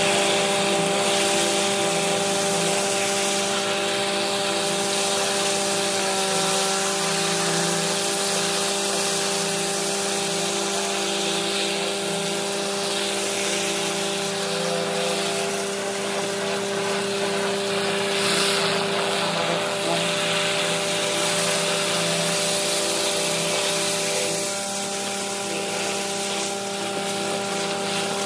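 High-pressure water wand blasting into gravel and soil, with a steady hiss, over the constant hum of a running machine with a steady whine.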